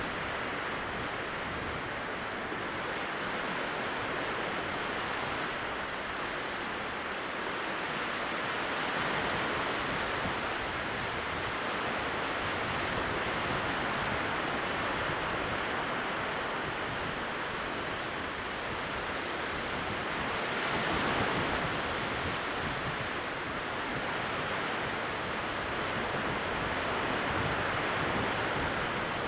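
Calm sea at very low tide: small waves breaking and washing in at the water's edge beyond the sand flats, a steady soft hiss of surf that swells gently a few times, most clearly about two-thirds of the way through.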